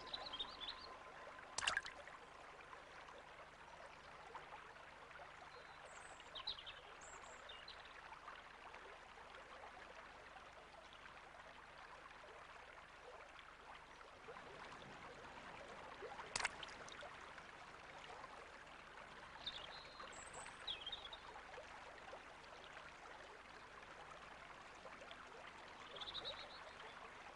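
Shallow stream running, a faint steady water sound, with a few faint high chirps scattered through it. Two sharp clicks stand out, about two seconds in and a little past halfway.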